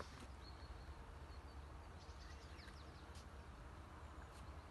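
Faint, short bird chirps scattered over a steady low rumble.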